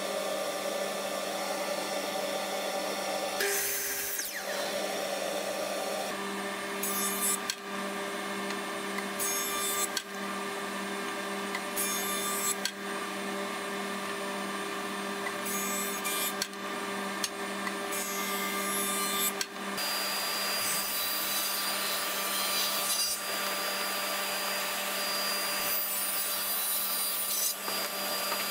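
Woodworking power tools milling a thick wooden block over a steady motor hum. First a miter saw crosscut, then repeated passes over a jointer, and from about two-thirds of the way through a table saw running and cutting.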